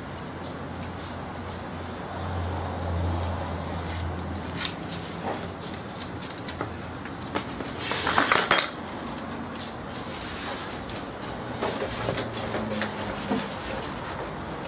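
Hand-work noises on a Depron foam model airframe: scattered light clicks and taps of a craft knife and steel ruler, then a louder rushing scrape about eight seconds in as the foam airframe is slid and turned over on the cutting mat, followed by more light knocks while the ducted-fan pod is set in place.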